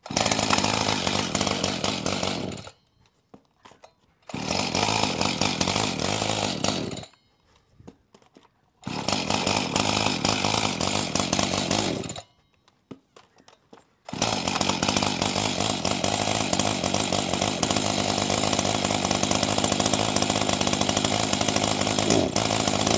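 Echo CS-590 two-stroke chainsaw, fitted with a CS-620 carburetor and ignition coil at stock carb settings, on its first start after the rebuild: it fires and runs for a few seconds, then dies, three times over. On the fourth start, about two-thirds of the way through, it catches and keeps running steadily.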